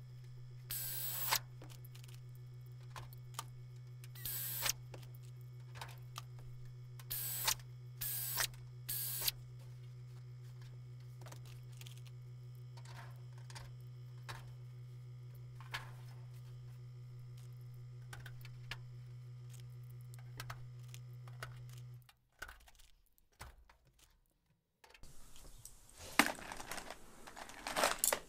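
Shop sounds of drilling and clecoing a thin aluminum wing skin: several short hissing bursts from a pneumatic air drill in the first ten seconds, and quick clicks from clecos being set, over a steady low hum. The sound nearly drops out for a few seconds, then rubbing and clicking on the sheet return near the end.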